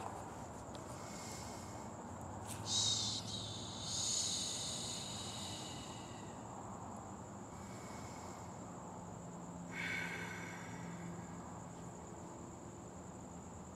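Crickets trilling steadily on a high, even note, with three brief rasping noises, the loudest about three seconds in and another about ten seconds in.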